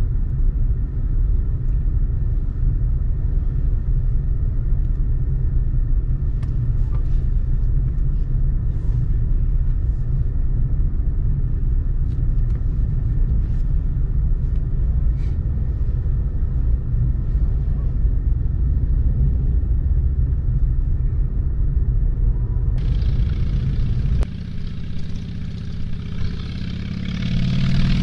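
Steady low road rumble of a car driving. About 24 seconds in the rumble drops away, and near the end motorcycle engines swell louder as a line of bikes passes close by.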